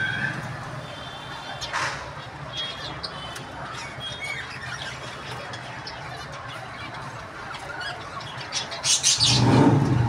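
A flock of caged zebra finches calling, many short nasal beeps and chirps overlapping. A louder burst of noise comes near the end.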